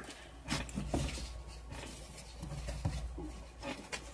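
Soft handling noises: scattered light clicks and rustles with a few small knocks, over a steady low hum.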